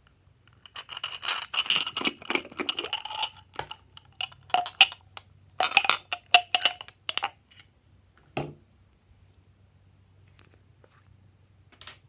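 Handling a strawberry-shaped plastic container: quick plastic clicks, rattles and clinks as its red cover is worked off a clear plastic inner jar, followed by a single thump a little past eight seconds.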